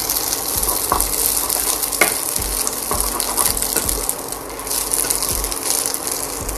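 Spaghetti frying in oil with bacon in a nonstick pan, sizzling steadily, while a wooden spatula stirs and tosses it, with scattered knocks of the spatula against the pan.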